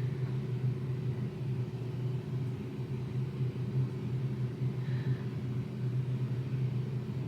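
A steady low machine hum, even and unbroken throughout, with a few faint higher overtones.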